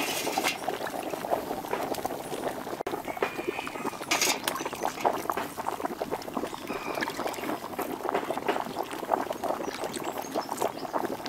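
Cake batter being ladled into a metal baking tray set over a boiling wok, a steady crackle and bubbling of water boiling beneath, with a few brief splashy bursts from the pouring.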